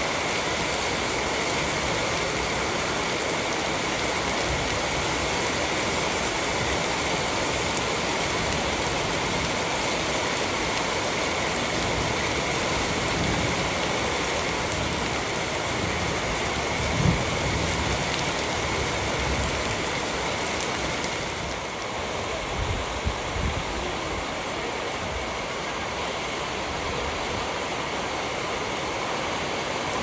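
Steady rain falling on hard, wet surfaces: an even hiss without a break. A single brief low thump sounds about halfway through, and the rain eases slightly a few seconds later.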